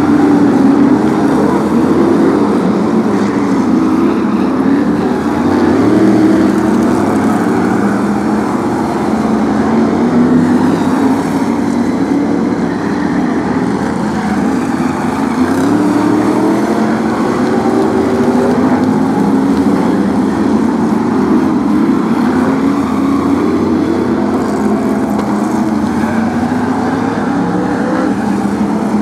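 A pack of BriSCA F1 stock cars with V8 engines running hard around the oval. Several engines are heard at once, their pitch rising and falling as the cars accelerate and pass.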